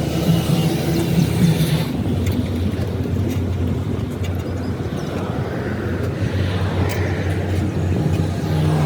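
An engine running steadily with a low hum that shifts slightly in pitch, and a few light clicks.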